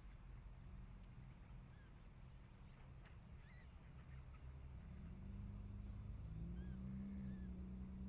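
Faint, scattered short calls from a flock of mallards resting on the shore, over a low rumble. A low steady hum comes in and grows louder about five seconds in.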